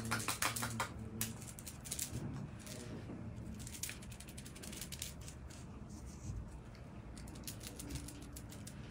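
Faint, irregular clicks and light taps, bunched in the first second or so and again near the end.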